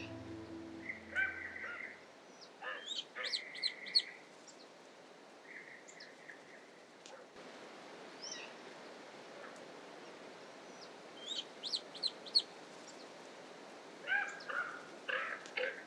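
Wild birds calling in short clusters: chirps and harsher calls, busiest around three to four seconds in, around twelve seconds, and again near the end. Soft music fades out during the first two seconds.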